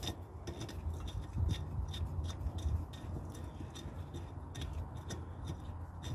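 Faint, irregular metallic ticks and scrapes of the second bolt being worked out of a MerCruiser 3.0 engine's thermostat housing, over a low handling rumble.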